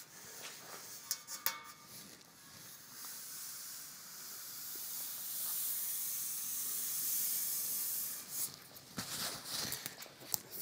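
Hand rubbing along an aluminium wing tube, feeling the surface for damage: a soft hiss that swells in the middle and fades, with a few light clicks near the end.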